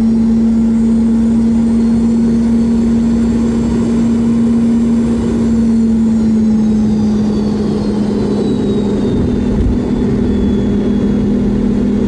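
Boeing 717's Rolls-Royce BR715 turbofan heard from inside the cabin right beside the engine during landing: a loud, steady engine hum with a high whine that slides down in pitch in the second half as the aircraft comes down onto the runway and rolls out. There is a brief low rumble near the end.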